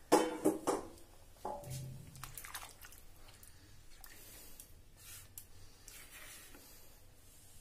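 A spatula stirring whole baby potatoes through a thin, watery masala gravy in a nonstick pan, with wet squelching and light knocks against the pan. The loudest part is a quick cluster of knocks in the first second.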